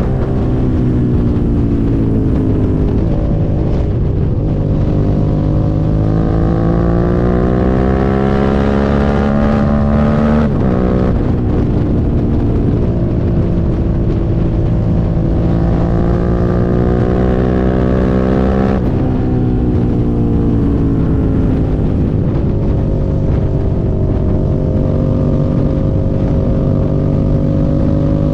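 Suzuki SV650 V-twin engine running under load, its pitch climbing slowly and dropping sharply twice, about ten and nineteen seconds in, as it pulls through the gears. The owner reports a misfire on this bike.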